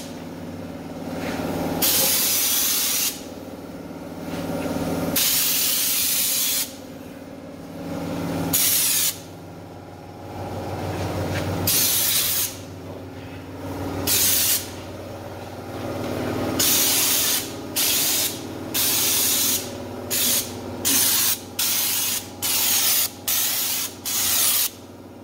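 Stone-guard underbody coating being sprayed in on-off bursts of hissing: several bursts of two to three seconds early, then quick short squirts in the second half, over a faint low steady hum.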